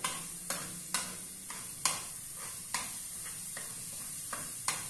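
Metal spoon stirring in an aluminium caldero, clinking against the pot several times at uneven intervals, over the light sizzle of minced garlic frying in oil.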